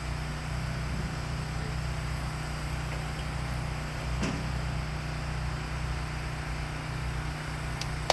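Woodland Mills portable bandsaw sawmill running steadily on its gas engine while the saw head is pushed through a log, with a light knock about four seconds in.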